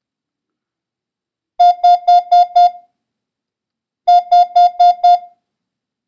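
Morse code practice tone sending two five-element Morse numerals: two groups of five identical steady beeps, the second group starting about two and a half seconds after the first.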